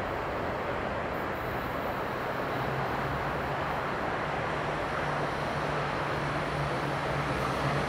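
Steady outdoor background rumble of distant traffic and wind, with a faint low hum fading in a couple of seconds in and the level slowly rising toward the end.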